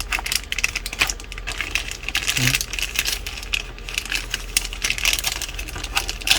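Plastic packaging crinkling and rustling as it is handled, with dense irregular crackles.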